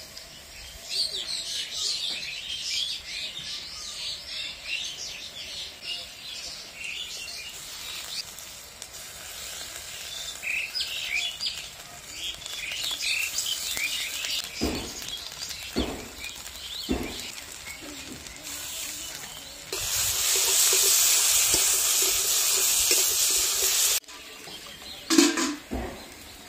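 Birds chirping, many short high calls, with three sharp knocks partway through. Near the end, onions and spices frying in oil in the karahi give a loud sizzle for about four seconds that cuts off suddenly, followed by a couple of metallic clanks.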